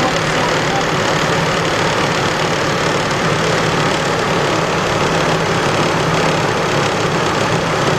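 2003 GMC Envoy's 4.2-litre inline-six engine idling steadily with the air conditioning on, running on a newly replaced serpentine belt tensioner that now holds the belt still.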